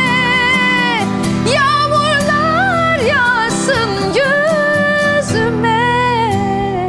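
Music from a Turkish ballad: the lead melody holds a long note with vibrato, then slides through quick ornamented runs and settles on another held, wavering note near the end, over a sustained accompaniment, with no words sung.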